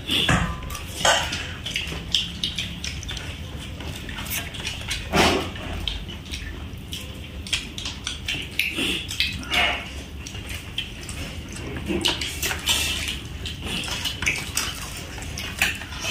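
Eating by hand from steel plates: chewing and mouth smacking, with fingers scraping rice on the plates and scattered clinks of steel dishes.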